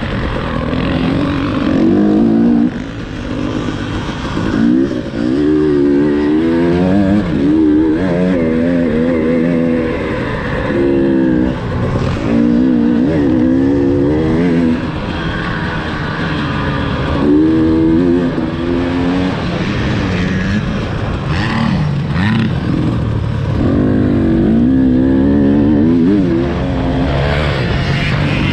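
KTM 300 TPI's single-cylinder two-stroke engine being ridden hard on a dirt track, its revs climbing and dropping over and over as the throttle is opened and shut through corners and jumps.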